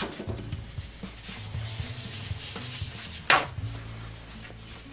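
Hands working on a wooden workbench: a plastic tray is shifted across the bench top, then a paper towel sheet is torn off the roll with a brief sharp rip a little over three seconds in.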